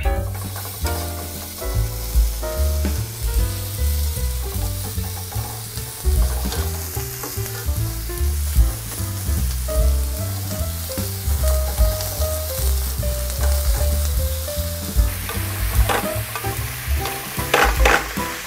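Raw pork belly slices sizzling and frying in a hot pan that was not oiled first, with metal tongs scraping and clicking against the pan near the end.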